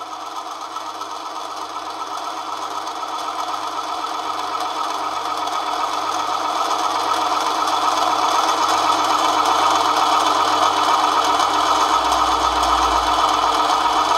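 Manson miniature lathe running at its single slow speed of about 550 rpm while the tool takes a light scratch cut on aluminium bar: a steady mechanical whir with several held tones, growing gradually louder.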